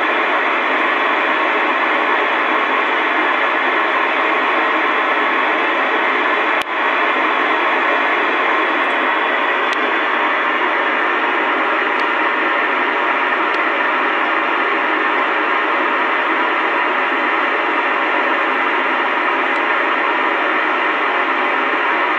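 2 m FM amateur radio receiver on the ISS APRS frequency, 145.825 MHz, with the squelch open: a steady loud hiss with no packet coming through. One short click about six and a half seconds in.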